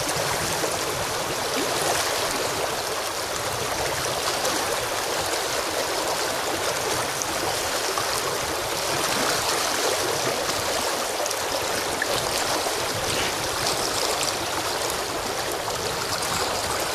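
Fast, shallow river riffle rushing steadily: an even wash of flowing water.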